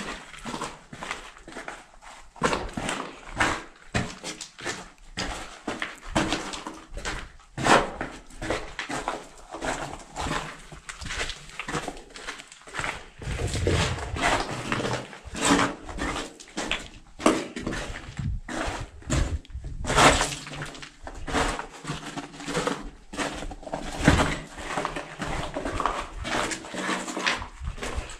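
Irregular footsteps, scuffs and knocks on rubble in a narrow concrete tunnel, with short voiced sounds in between.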